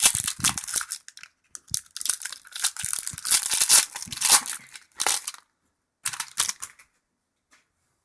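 A hockey trading-card pack being torn open and its wrapper crinkling, in several bursts over about seven seconds, stopping near the end.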